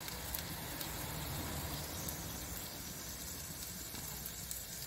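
Chicken wings and a ribeye sizzling on a charcoal smoker's grill grate: a steady hiss with faint scattered crackles.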